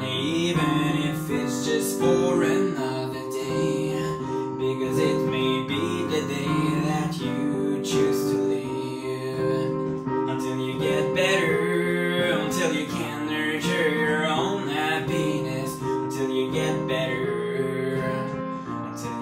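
Solo digital piano playing an original piece: sustained chords under a moving melody, heard through a phone's microphone.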